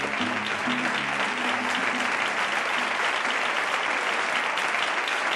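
Studio audience applauding steadily at the end of a song, with the last low notes of the accompanying music dying away in the first couple of seconds.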